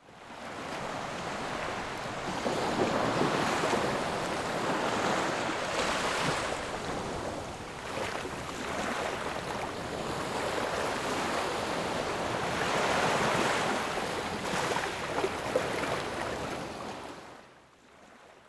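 Sea surf washing onto a beach, rising and easing in surges every few seconds, fading out near the end.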